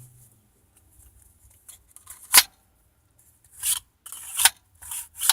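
A plastic spring-powered airsoft pistol being handled: one sharp click about two and a half seconds in, then a few short scraping rubs.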